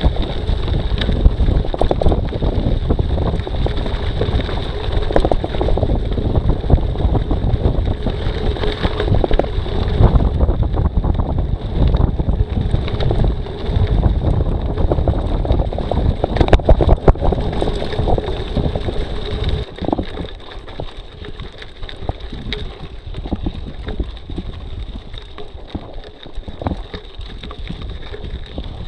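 Wind buffeting the camera microphone over mountain bike tyres rolling on a gravel dirt road, with scattered rattling clicks from the bike. About two-thirds of the way through the rumble drops to a quieter crunch of slow uphill riding.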